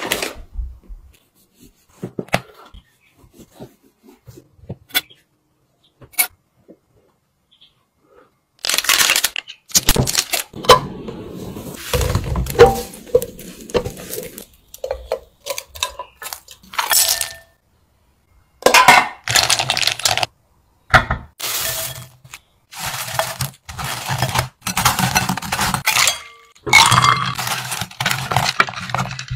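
Kitchen prep sounds in short spells with gaps between them: a spatula stirring and tossing bread cubes in a pan, and scraping and clinking against a glass bowl while chocolate-coated cubes are mixed. The first few seconds hold only scattered faint clicks.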